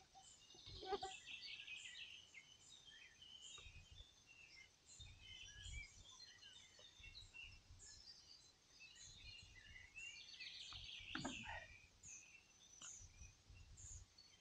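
Faint woodland birdsong, one bird repeating a short high call about twice a second among other scattered notes, with low rumbles of distant thunder coming and going.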